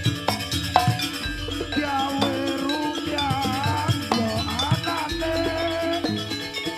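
Jaranan music: a percussion ensemble with frequent sharp drum and metal strikes and a rattling shaken-percussion layer. Over it, a wavering melody bends up and down in pitch through the middle.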